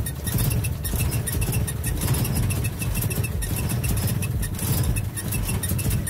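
Car engine running with a steady, dense noise from the clutch release fork rubbing against its pivot ball: too much friction at the contact point, which grease on the contact area can sometimes cure.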